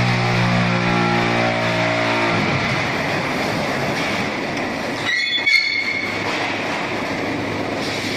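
QT12-15F concrete block making machine running with a loud, dense mechanical rattle. A steady hum stops about two seconds in, and a short high-pitched metal squeal sounds about five seconds in.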